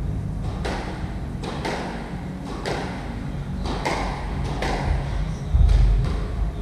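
Squash rally: a string of sharp hits as the ball cracks off rackets and the court walls, each hit ringing around the court. A heavy low thud comes about five and a half seconds in.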